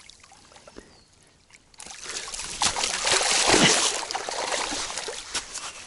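Water splashing and sloshing as a hooked bream thrashes at the surface while it is drawn in to the bank. It starts after a short lull, about two seconds in, and is loudest in the middle.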